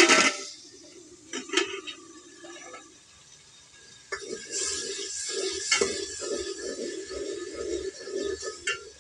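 Hiss of steam tailing off at the very start as the pot is uncovered. Then a metal ladle clinks a few times against a metal cooking pot, followed by several seconds of stirring and scraping inside the pot with occasional sharp knocks.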